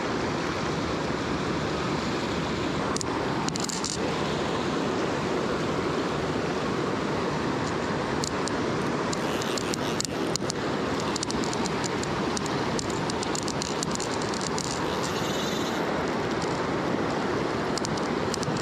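Fast river current rushing over rocks, a steady even wash of water. From about halfway in, scattered light ticks from a fly reel being wound in.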